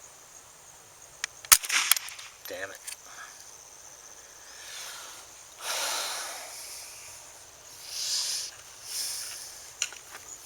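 A single .22 LR rifle shot from a Savage 64 about a second and a half in, a sharp crack with a short tail after it. A steady high insect chirring runs underneath, and a few soft rushing swells of noise follow later.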